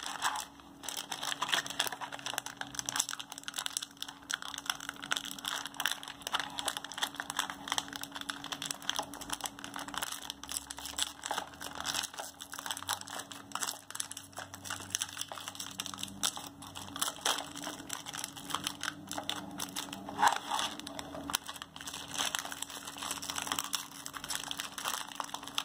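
Metallic foil snack pouch crinkling and crackling as it is handled and its seal is peeled open by hand, with many quick irregular crackles.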